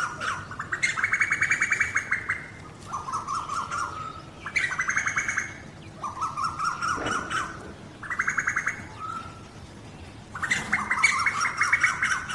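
Male and female Asian koels calling to each other during courtship in rapid, bubbling trills of fast repeated notes. A lower, slightly rising trill alternates with a louder, higher one, in about four rounds.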